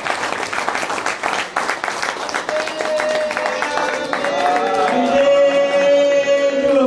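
An audience applauding, with long held sung notes of a chant rising over the clapping from about two and a half seconds in and growing louder as the applause fades.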